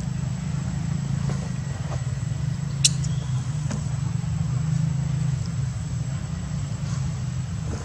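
A steady low rumble, like a motor or wind on the microphone, with a faint high steady whine above it and one sharp click about three seconds in.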